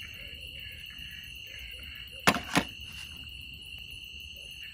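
Steady high chirring of night insects, broken about two seconds in by two sharp cracks about a third of a second apart.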